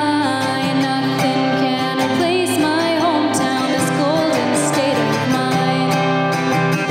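A woman singing to her own strummed acoustic guitar, solo and unaccompanied. The voice stops near the end, leaving the guitar strumming on.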